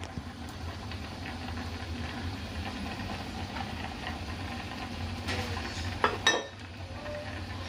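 Steady low hum of running kitchen appliances, with two sharp knocks about six seconds in.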